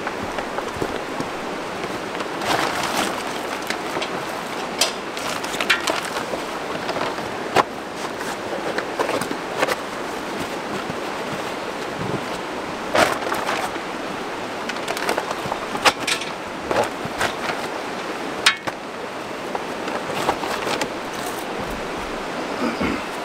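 Tarp rustling and strap hooks and buckles clicking and clinking against a hitch-mounted cargo carrier as a load is tied down, in irregular sharp knocks, over a steady background of water noise.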